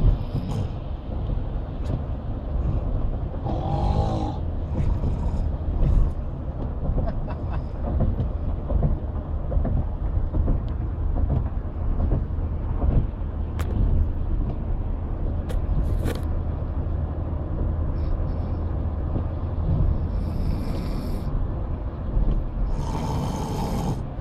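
A man snoring in his sleep inside a moving car, over the car's steady low road rumble.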